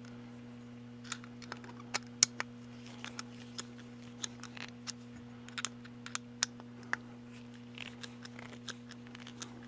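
Screwdriver tightening the back strap screws on a Pietta 1851 Navy revolver: a scatter of light, irregular metallic clicks and small scrapes. A steady low hum runs underneath.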